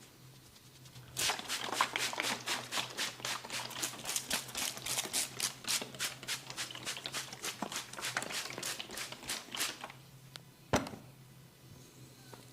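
Rapid, even percussive hand strikes on a person's head during a barber's head massage, about five or six a second for roughly eight seconds, then one single sharp crack near the end.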